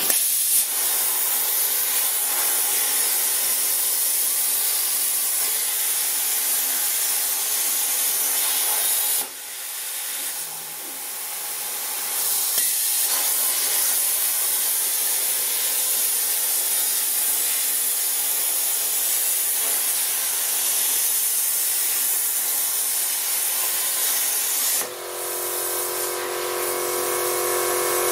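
CNC plasma cutter's torch cutting sheet steel: a loud steady hiss of the plasma arc and its compressed air. The hiss drops off about nine seconds in and builds back up a few seconds later. Near the end the hiss stops and a steady whine of several tones takes over.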